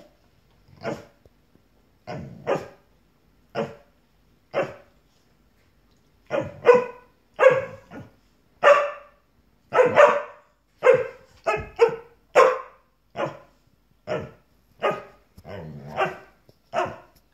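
Springer spaniel barking: short single barks, about one a second at first, then, after a pause of a second or two, quicker, about two a second.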